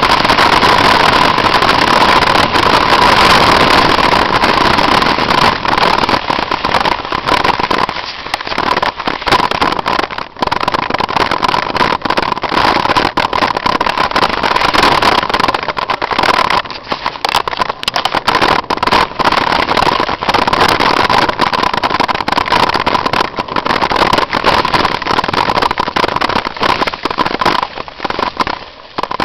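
Mountain bike riding fast downhill: wind rushing over the camera's microphone and tyres rolling over a rough dirt and rock trail, with frequent knocks and rattles from the bumps.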